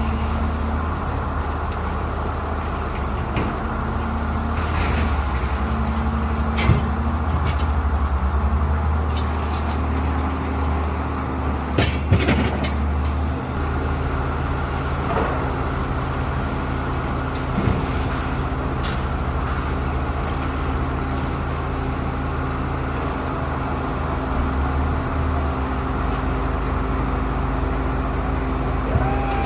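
Motor vehicle engine running steadily while driving, with a few short knocks and rattles, the loudest about twelve seconds in.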